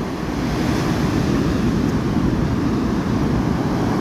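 Steady rumble of wind on the microphone mixed with the wash of the sea, growing slightly louder about half a second in.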